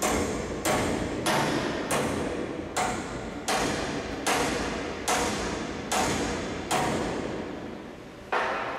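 Steel hammer striking stud-welded steel V-anchors to bend them over in a hammer test of the welds: about eleven sharp metal blows with a short ring after each, roughly three every two seconds, with a slightly longer pause before the last blow near the end.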